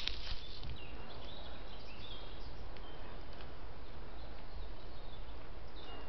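Steady hiss and low rumble of a trail camera's microphone, with a few short, high bird chirps in the first half and again near the end, and a single soft knock just after the start.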